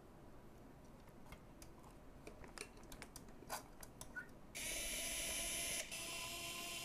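Faint clicks and rattles of circuit boards and wiring being handled. About four and a half seconds in, a small electric screwdriver starts running with a steady high-pitched whine, pausing briefly about a second later, as it drives a screw to fix the capacitor bank into the spot welder's metal case.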